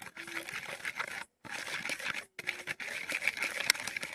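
Metal spoon whipping instant coffee, sugar and warm water in a bowl by hand: a fast run of clicks and scrapes of the spoon against the bowl, with two brief pauses. This is the beating that turns the mixture into dalgona coffee froth.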